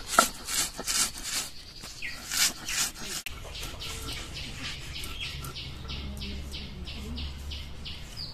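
Stone roller (nora) rubbed back and forth on a flat grinding stone (shil), crushing puffed rice into powder: a rhythmic gritty scraping, about three strokes a second.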